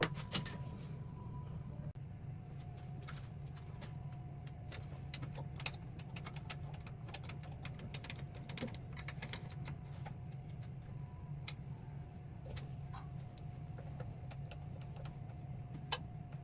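Scattered light clicks and small metallic clinks over a steady low hum.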